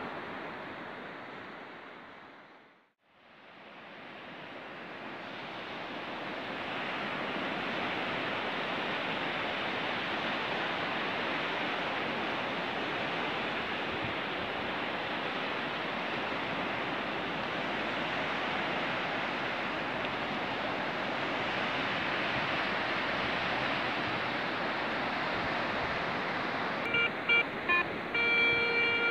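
Steady hiss of shoreline surf, fading out to silence about three seconds in and rising back up. Near the end a Garrett ACE 150 metal detector gives several short signal beeps as the coil passes over a buried target, a good-sounding coin signal.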